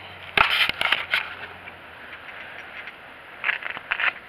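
Fishing gear being handled on the ground: two short bursts of clattering and scraping, one about half a second in and one near the end.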